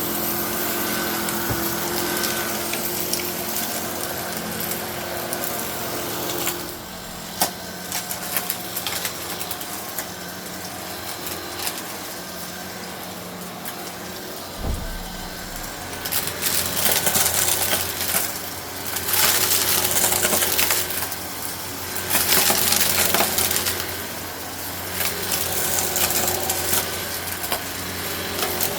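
Eureka Innova NEU700 upright vacuum running over carpet, sucking up aquarium gravel that rattles and crunches through the brushroll and hose. The crunching comes in repeated swells from about halfway in, with a low bump just before.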